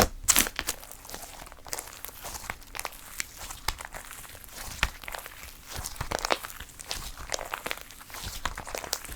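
Slime being squished and pressed by hand, giving an irregular run of small sticky clicks and pops.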